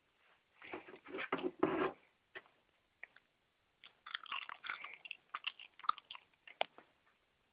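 A cluster of loud crunches in the first two seconds, then a run of sharper clicks and crackles a few seconds later.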